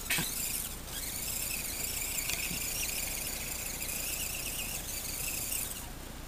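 Axial SCX10 RC rock crawler's electric motor and gearbox whining as it crawls over dirt, the pitch wavering up and down with the throttle.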